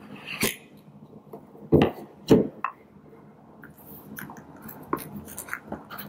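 Cardboard gift-box packaging being handled: the outer sleeve slides off the inner box, with two dull thumps of cardboard on the tabletop about two seconds in, then light scrapes and taps of fingers on the cardboard.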